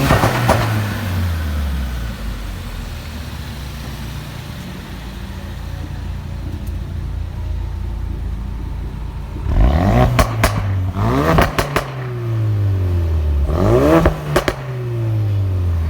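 Ford Focus RS engine settling back to idle, then blipped twice in the second half. Each time the revs rise sharply and fall back with a quick burst of crackles and pops from the exhaust on the overrun.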